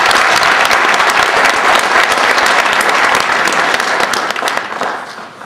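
Audience applauding: many people clapping at once, dying away near the end.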